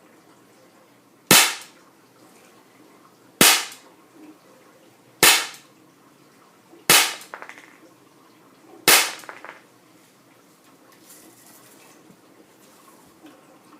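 Daisy Model 200 CO2 BB pistol fired five times, one sharp shot about every two seconds; the last two are followed by a faint clatter.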